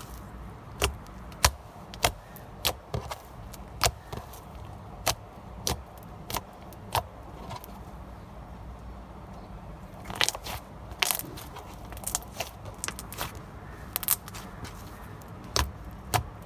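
Fingers poking slime, making short, sharp sticky clicks and pops at irregular intervals. The pops thin out in the middle and come quicker again near the end.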